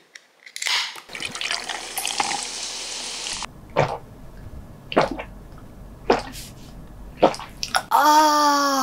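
A beer can is cracked open with a snap and hiss, then beer is poured fizzing into a glass mug for about two seconds. Four gulps follow, about a second apart, and near the end a long falling 'ahh' of satisfaction.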